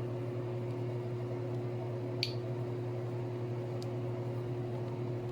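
Steady low hum with no rhythm, and a faint short click about two seconds in.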